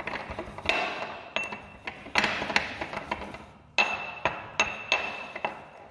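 Ceramic pestle knocking and grinding in a ceramic mortar, crushing dried fungal mycelium to powder: a string of sharp clinks, each with a brief ring, coming irregularly about once or twice a second and growing fainter toward the end.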